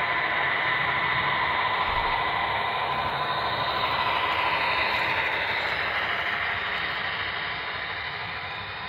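Model freight train running past close by: a steady whir and rumble of several model diesel locomotives' motors and wheels on the track, with a faint steady whine. It fades over the last few seconds as the locomotives move away and the freight cars roll by.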